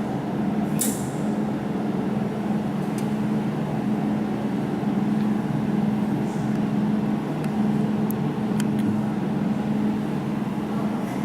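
Jewelry laser welding machine humming steadily, with a few sharp clicks as single laser pulses fire on silver.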